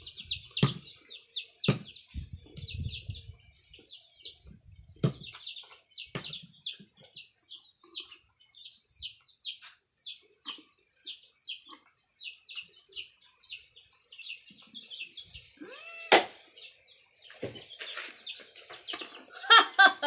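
Many small birds chirping rapidly and continuously. A few sharp knife chops on a wooden chopping board in the first several seconds, and a chicken calls once about sixteen seconds in.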